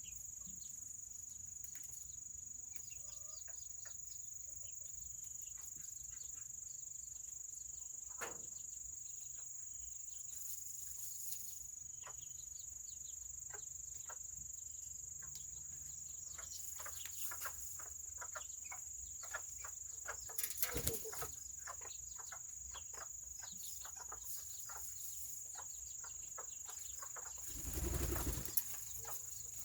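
Serama chickens moving about, with scattered small taps and clicks and a steady high-pitched whine behind them. Near the end comes a short burst of wing flapping, the loudest sound here.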